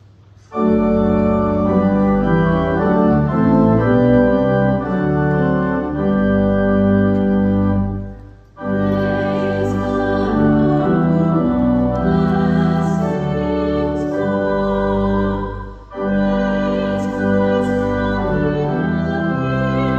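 Church organ playing full, sustained chords. It comes in about half a second in and pauses briefly twice, near eight and a half and sixteen seconds, between phrases.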